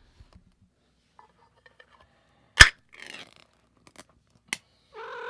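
Metal can of cat food opened by its pull-tab lid: one sharp pop as the seal breaks, then a short scraping tear as the lid peels back, and a couple of light clicks. A cat gives a short meow near the end.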